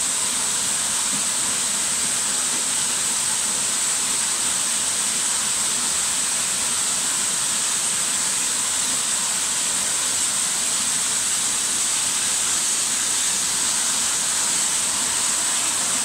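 Waterfall cascading over rock ledges: a steady, unbroken rush of falling water.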